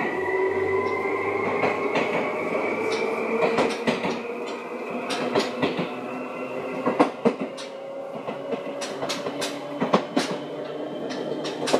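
Seibu 2000 series electric train running. Its motor and gear whine climbs steadily in pitch as it picks up speed and levels off near the end, with sharp wheel clicks over the rail joints coming more often in the second half.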